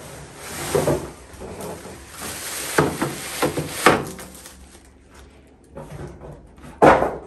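A microwave oven being unboxed: cardboard and packaging scraping and rustling, with several sharp knocks, the loudest near the end.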